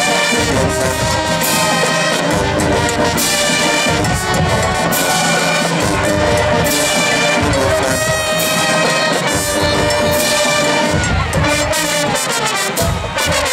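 Marching band playing a stand tune: brass with sousaphones over a steady drum beat with regular cymbal crashes.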